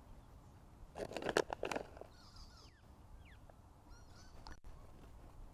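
A short crinkling rustle about a second in, from the plastic pouch and the crumbs as vegan parmesan is sprinkled by hand. It is followed by birds calling faintly with short sliding notes.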